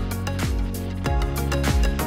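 Background music with a steady drum beat, low kick hits about every two-thirds of a second under bright hi-hats and held chords.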